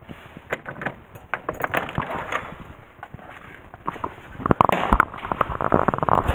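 Keys rattling and a door lock clicking as a wooden front door is unlocked and pushed open, with a denser stretch of louder clatter and rustling from about two-thirds of the way in.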